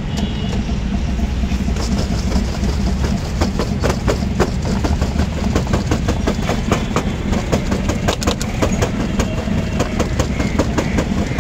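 A steady low engine-like rumble with many irregular sharp clicks and rattles over it.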